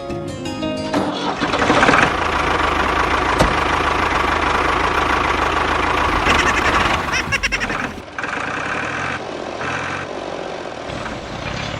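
Tractor engine starting up and running with a loud, rattling, noisy sound. About eight seconds in it drops to a quieter, patchier running.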